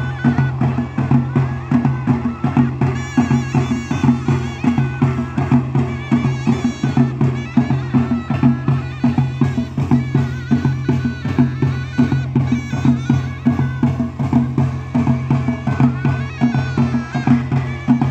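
Live traditional Mozabite folk music: drums beating a fast, even rhythm, with a wavering melody line above.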